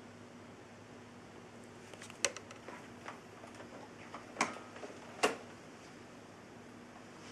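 A few sharp clicks and knocks from handling an upright vacuum cleaner, the loudest about two, four and five seconds in, over a faint steady hum.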